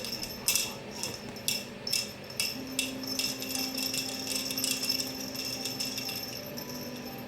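Metallic jingling, like a small bell or metal trinket being shaken: a series of sharp jingles, then a run of continuous jingling that fades out. A steady low hum comes in about two and a half seconds in.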